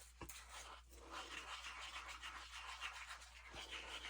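Faint, rapid scraping of a stir stick inside a small cup, mixing pigment powder.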